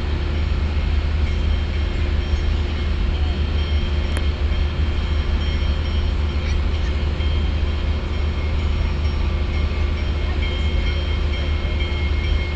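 Union Pacific Big Boy articulated steam locomotive arriving, a loud steady rumble.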